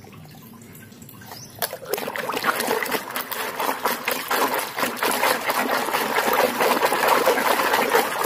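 Water splashing and sloshing in a plastic basin as a hand scrubs a muddy toy car under the surface; the splashing starts a little under two seconds in and goes on busily.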